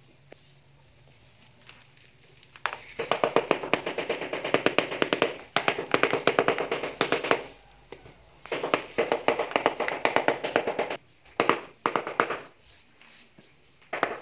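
Rubber mallet tapping a ceramic floor tile to bed it into fresh mortar: rapid runs of taps, many to the second, in bursts with short pauses, starting about three seconds in.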